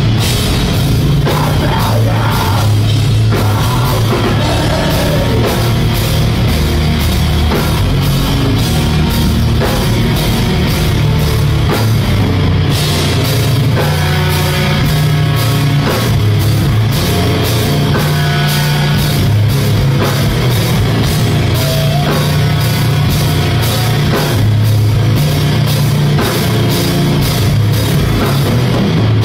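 Live rock band playing loud, steady music: electric guitars and a drum kit, with drum hits keeping a regular beat throughout.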